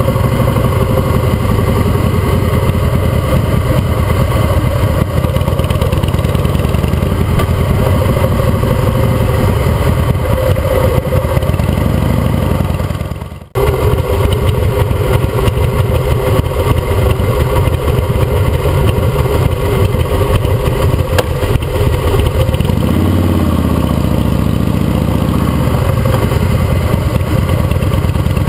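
Custom Harley-Davidson V-twin engine running under way at city speeds, its exhaust pulses strong and low, with brief revs rising in pitch twice. The sound fades out briefly about halfway through and cuts back in sharply.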